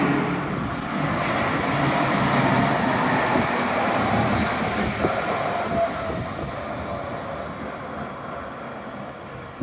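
Leipzig NGTW6 "Leoliner" tram passing underneath and running away along the track, its motors and wheels fading steadily. Two light knocks from the wheels come about halfway through.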